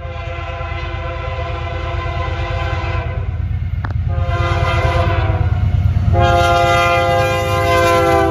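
Canadian National freight locomotive's air horn sounding for a grade crossing: a long blast, a shorter one, then another long one, over the low rumble of the approaching train, which grows louder as it nears.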